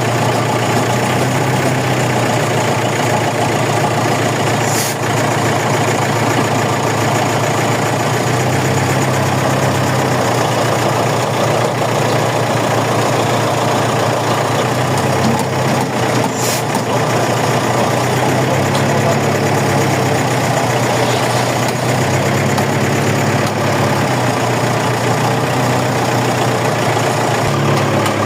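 Crane's heavy engine running steadily at a low drone, with a brief high hiss of air twice.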